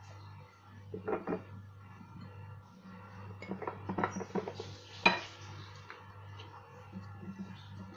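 Glass jars and whole lemons knocking and clinking on a granite countertop as lemons are pressed into the jars and a jar is moved, with the loudest knock about five seconds in. A low steady hum runs underneath.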